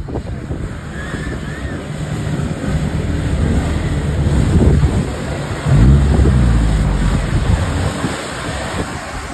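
Ram pickup's V8 engine revving as the truck churns through deep wet mud, rising to its loudest about six seconds in. Wind buffets the microphone throughout.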